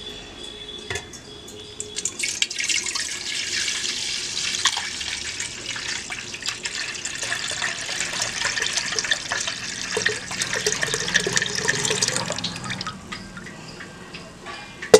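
Milk poured in a steady splashing stream through a small plastic mesh strainer into an aluminium pot. The pour starts about two seconds in and trails off a couple of seconds before the end. A single sharp knock, the loudest sound, comes right at the end.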